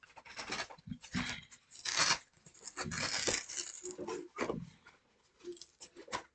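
Cardboard shipping box being torn open by hand, with packing tape and cardboard ripping in irregular bursts, loudest about two seconds in and again around three seconds in.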